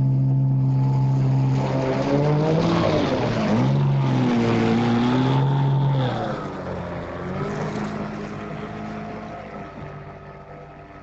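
A motor engine running with a steady hum, its pitch dipping and rising a couple of times as it revs, then fading away gradually over the last few seconds.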